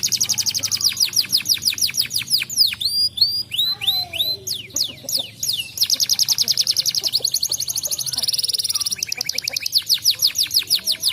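Domestic canary singing fast trills: rapid runs of high, repeated downward-sweeping notes, about ten a second, broken by a few slower notes in the middle and a denser, buzzier roll near the end.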